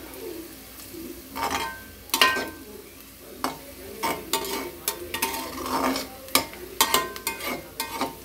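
A metal spatula scrapes and knocks irregularly against a metal kadhai while stirring chopped onions frying in oil. Some strokes leave a brief metallic ring, over a faint steady sizzle of the onions browning on a medium flame.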